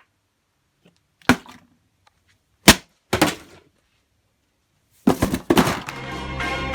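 About five sharp cracks or knocks, a second or more apart, the loudest about two and a half seconds in, with music starting near the end.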